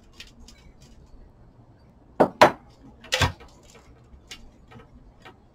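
Glass jar and bowl being handled and set down: a few light clicks, then two sharp knocks close together and a third about a second later.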